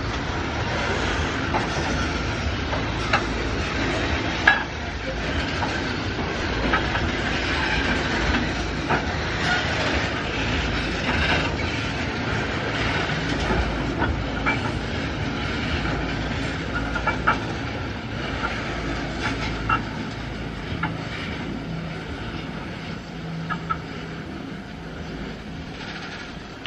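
Loaded iron-ore gondola wagons rolling past: a steady low rumble with irregular clicks and clacks of the wheels over the rail joints. It fades over the last few seconds as the end of the train draws away.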